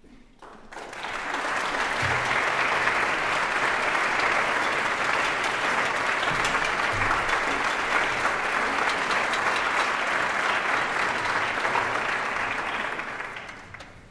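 Audience applauding. The applause swells in about a second in, holds steady, and dies away near the end.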